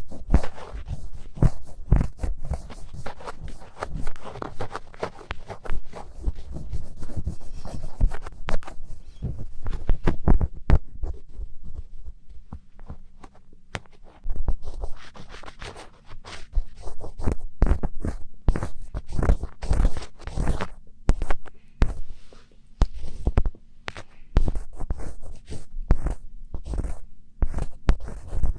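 Close-miked ASMR scratching sounds: rapid, crackly scratches and rubs, thinning out and quieter for a few seconds in the middle before picking up again.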